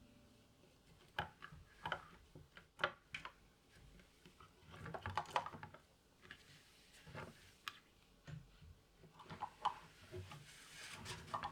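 Irregular light clicks and knocks of household objects being handled and set down, with a short rustle near the end.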